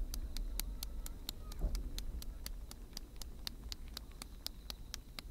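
Low rumble of a fireworks shell's burst echoing and dying away, over a steady ticking of sharp clicks about five a second.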